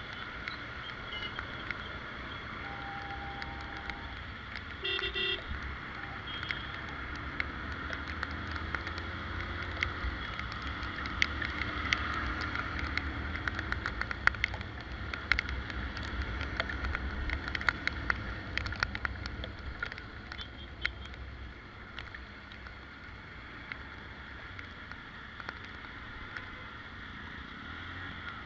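A vehicle moving through a waterlogged alley in the rain, with a steady low rumble and many short splashes and rattles. A brief horn toot sounds about five seconds in.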